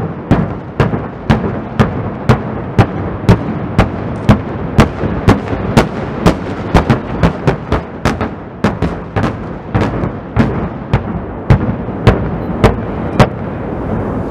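A rapid chain of distant explosive charges detonating on a mountainside, about two sharp reports a second over a continuous rolling rumble of echoes. The reports stop about a second before the end, leaving the rumble.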